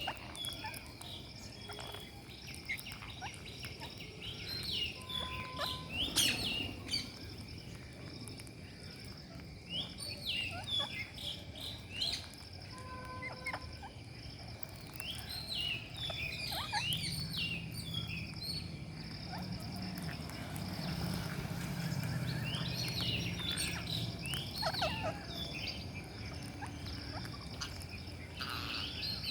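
Rose-ringed parakeets chirping in short clusters of quick calls every few seconds, over a faint steady high-pitched tone.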